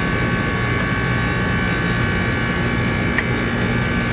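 Steady mechanical hum with several steady high whining tones, with a faint click about three seconds in.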